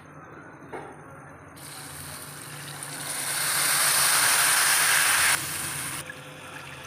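Water poured into a hot pan of ghee-toasted vermicelli, hissing and sizzling as it hits the hot fat and turns to steam. The hiss swells over a couple of seconds, holds loudest, then drops off sharply about five seconds in and fades soon after.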